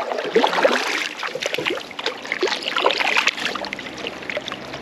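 Water splashing and trickling in quick, irregular bursts as a hooked smallmouth bass is landed at the side of a kayak.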